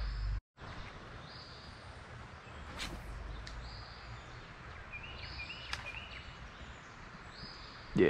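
Woodland creek ambience: a steady background hiss with birds calling, a short high call repeating every second or two and a quick run of chirps about five seconds in. Two faint sharp ticks, around three and six seconds in.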